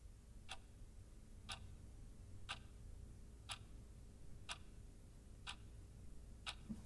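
A clock ticking at a steady once a second, seven ticks, over a low steady hum.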